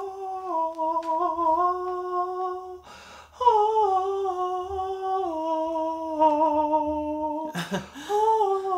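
A woman humming a slow tune in long held notes that step up and down, stopping for a breath about three seconds in and again near the end.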